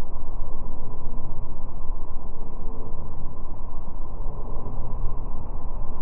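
Motorboat under way at speed: a steady low engine drone mixed with the rush of the churning wake.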